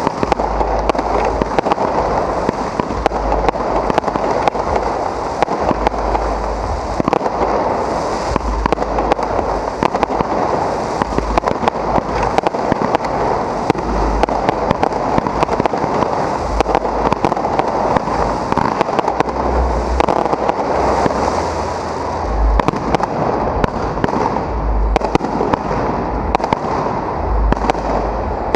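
Fireworks display at close range: shells launching and bursting overhead in rapid succession, a dense, unbroken crackle packed with many sharp bangs.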